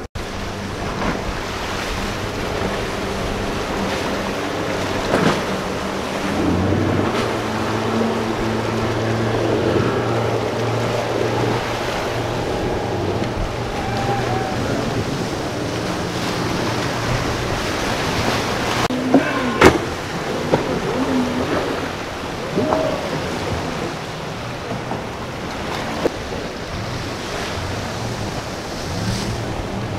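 Outboard boat engines running through rough inlet chop, with a steady drone over the rush of breaking waves and spray and some wind on the microphone. A few sharp slaps stand out about two-thirds of the way through.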